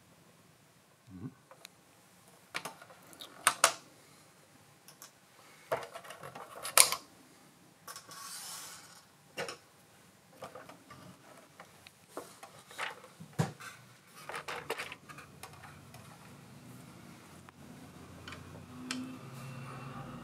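Hands handling a 1/6 scale RC jeep model: scattered clicks and knocks of its plastic body and chassis parts, a few of them sharp, with a brief rustle about eight seconds in.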